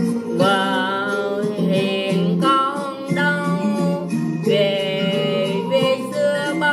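Vietnamese cải lương hồ quảng singing: a voice holding long, wavering notes over an accompaniment of plucked strings.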